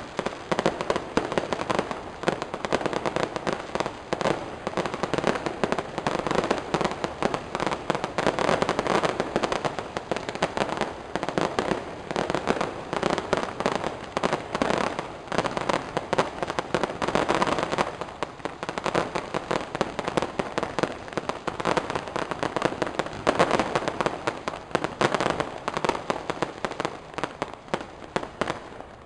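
Fireworks going off in a dense, continuous rattle of rapid bangs and crackles, swelling louder in waves every several seconds.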